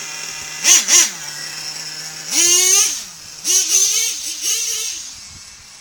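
Small nitro engine of an RC monster truck idling with a steady buzz, blipped twice about a second in. Then it revs up as the truck drives off, its pitch rising and wavering with the throttle before fading as the truck gets farther away.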